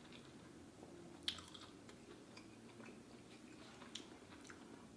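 Faint close-up chewing of a bite of chicken sandwich, with soft wet mouth clicks, the sharpest about a second in and another near the end.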